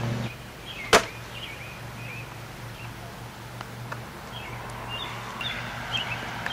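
One sharp smack about a second in, over faint chirping of small birds and a low steady hum.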